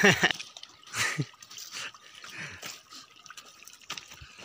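Water splashing and dripping in the shallows at a river's edge, loudest at the very start and again about a second in, then softer splashes.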